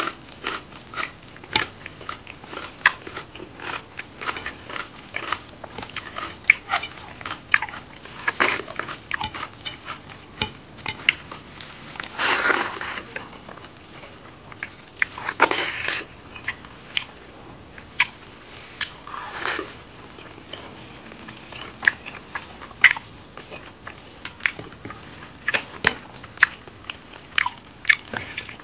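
Close-miked mouth sounds of a person eating pork curry and rice by hand: chewing and lip smacking in many short clicks, with four longer, louder mouth sounds in the middle stretch.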